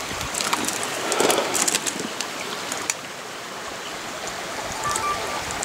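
Creek water rushing steadily, with a few light clicks and knocks in the first two seconds.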